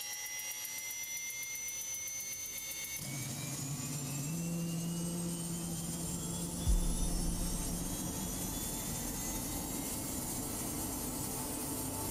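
Aircraft turbine engine whining, the whine rising slowly in pitch as the engine spools up. About three seconds in a low steady hum joins, and a single deep thump comes at about the middle.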